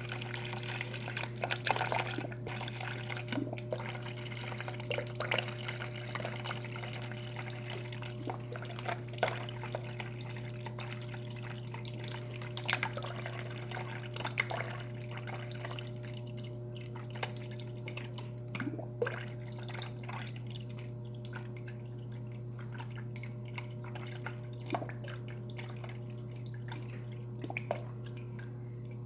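Water spitting and dripping from a Samsung refrigerator's door dispenser as air is purged from the line after a new water filter, over a steady low hum. The splashing thins out about halfway through, leaving scattered drips.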